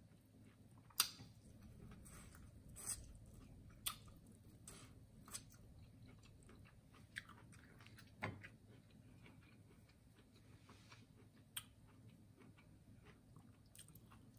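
Close-up eating sounds: wet chewing and lip smacking on saucy corn on the cob, with sharp short clicks scattered about once a second, the loudest about a second in.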